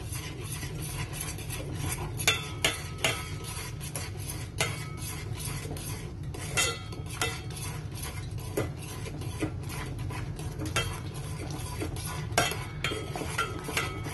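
A metal fork stirring thickening cornflour glue in a pot, clinking and scraping against the pot's sides and bottom in quick, irregular strokes, over a steady low hum.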